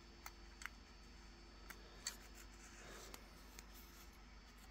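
Near silence with about six faint light clicks and taps of small 3D-printed plastic watchmaking parts being handled between the fingers, the clearest about two seconds in.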